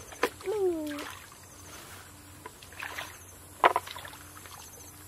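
A hand splashing in a shallow muddy puddle while grabbing at small fish, with one sharp splash about three and a half seconds in. A short high voice cry, falling in pitch, comes just after the start.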